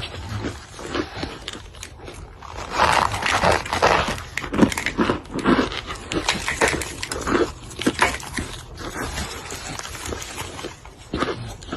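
Close-miked ASMR chewing: crunching and crackling of compressed cornstarch chunks, with wet mouth sounds between bites.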